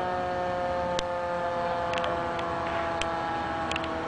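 A fire engine's mechanical siren coasting down after arrival, several steady tones sinking slowly in pitch together, with a sharp tick about once a second.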